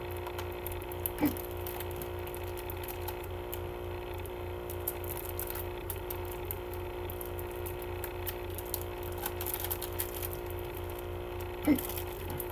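Hands working at the plastic wrapping of a CD case, with small crinkles and clicks over a steady hum. Two short, louder sounds stand out, one about a second in and one near the end.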